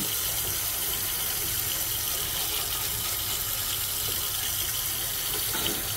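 Water running steadily from a kitchen faucet into a sink, an even rushing hiss.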